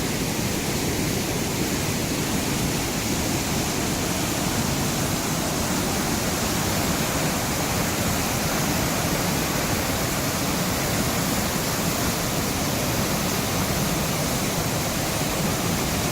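Steady loud rush of river water flowing over rapids just downstream of a waterfall, an even unbroken roar.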